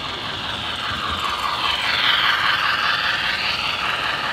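Model train running along its track as it comes out of a tunnel and passes close by: a steady rattling whir of wheels on rail joints and motor. It grows louder over the first two seconds and then holds.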